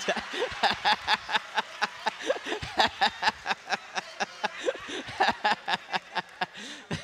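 Church congregation laughing and clapping, a quick irregular patter of hand claps with scattered laughing voices.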